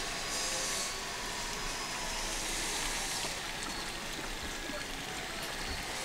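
Steady hiss of water, swelling slightly a couple of times.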